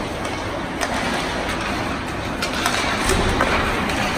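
Ice hockey play in an arena: a steady wash of skate and rink noise, with several sharp clicks and knocks of sticks and puck scattered through it.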